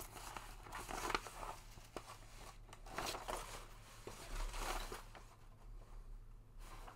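Paper rustling and crinkling as a rolled art print and its thin protective paper layer are unrolled and handled, in several soft swishes.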